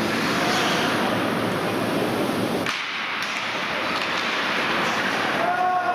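Steady noise of an ice hockey game in progress in an arena, with a brief dip about three seconds in, then a steady horn blast beginning near the end.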